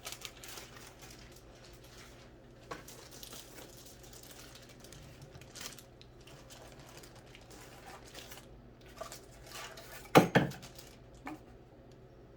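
Rustling and handling of packaging and accessories while unpacking a sewing machine, with scattered small clicks and a short clatter of hard objects about ten seconds in.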